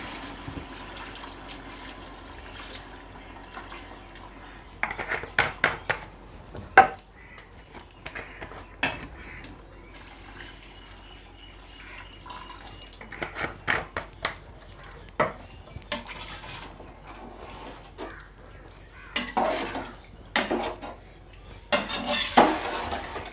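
Water poured into a metal cooking pot of chicken masala, and a perforated steel ladle stirring and clinking against the pot's sides in scattered knocks. This is the water going in before the rice for a chicken biryani.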